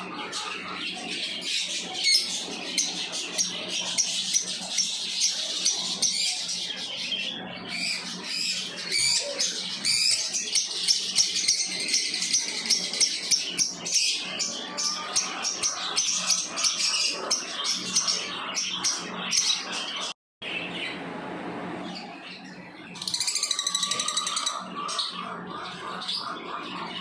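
Lovebirds chirping: a busy stream of short, high, sharp chirps that keeps going, cutting out for an instant about twenty seconds in and picking up again into a quick burst of chirping a few seconds later.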